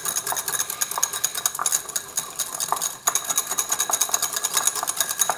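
Wire balloon whisk beating a thin vinegar-and-honey dressing in a small ceramic bowl: rapid, steady clinking of the wires against the bowl.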